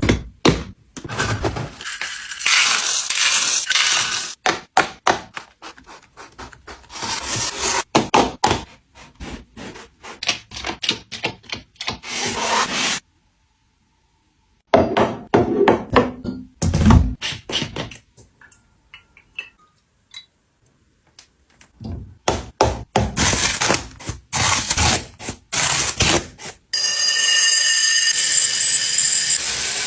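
Kitchen containers, lids and packaging being handled and set down: a long string of clicks, knocks and rubbing, cutting to silence for a moment in the middle. A steady hiss starts in the last few seconds.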